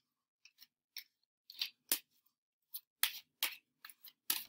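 A deck of playing cards being shuffled by hand in an overhand shuffle: a dozen or so short, sharp snaps and clicks at an irregular pace as packets of cards are pulled off and dropped onto the deck.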